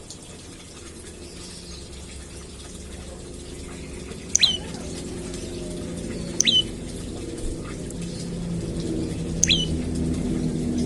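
Prenjak lumut bird giving three short, sharp chirps about two to three seconds apart, each a quick high note that drops in pitch. A low steady hum underneath grows louder toward the end.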